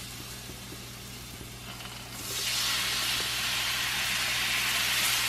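Broth poured from a ladle into a hot, oiled frying pan of browned meatballs. A loud sizzle of flashing steam starts about two seconds in and goes on steadily as the liquid steams the meatballs.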